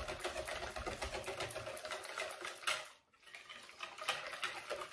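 Wire whisk beating thin pancake batter in a plastic bowl: rapid, even strokes, with a brief pause about three seconds in.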